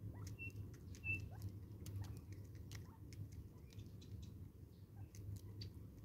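Francolins pecking seed from a jar: quick, irregular faint tapping clicks throughout. Two brief high chirps from a small bird come about half a second and a second in.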